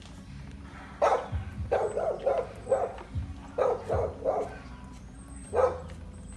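A dog barking: short barks in quick runs, four or five starting about a second in, three more around four seconds in, and a single bark near the end.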